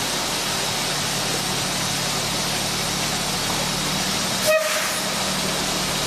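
Fire engine's diesel engine idling steadily: a low hum under a broad hiss. One short horn toot about four and a half seconds in.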